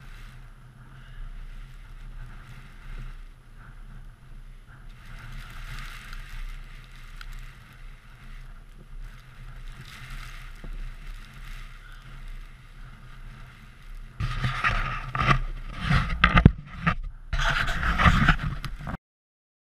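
Wind buffeting a camera microphone on an open beach: a steady rushing rumble that turns louder and gustier about fourteen seconds in, with several sharp knocks and thumps near the end.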